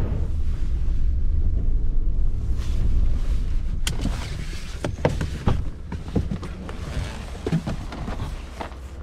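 Low engine and road rumble inside a pickup truck's cab as it rolls in and stops. About four seconds in the rumble fades and a string of sharp clicks and knocks follows as things are handled in the cab and the driver's door is opened.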